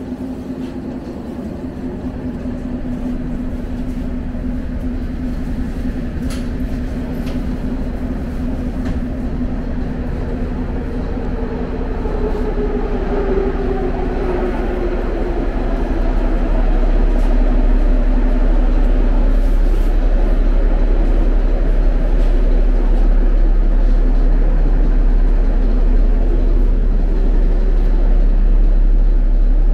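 Interior sound of a St. Petersburg metro train car: a steady electric hum and rumble. Around the middle a motor whine glides downward in pitch, and from then on the rumble is deeper and louder.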